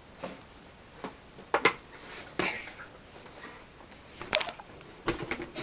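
Handling noise on a bed: a few scattered bumps and knocks with brief rustles of bedding, as things are moved and the handheld camera is jostled.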